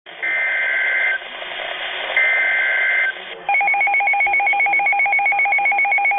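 Emergency Alert System SAME header, received over the air with radio hiss: two short bursts of chirping digital data tones. These are followed by a rapidly pulsing two-tone alert signal at about ten beeps a second.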